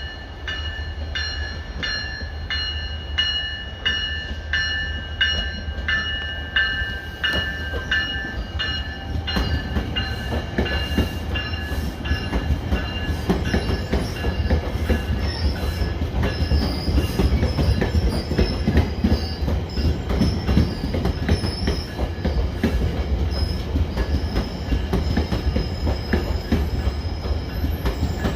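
A bell strikes in a steady rhythm, about one and a half strokes a second, for roughly the first nine seconds. Then a passenger train led by a cab car rolls past, its wheels clicking over the rail joints and squealing, growing louder.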